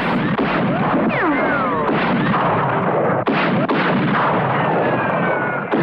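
Artillery barrage: continuous shelling and explosions, with a few falling whistles over the din.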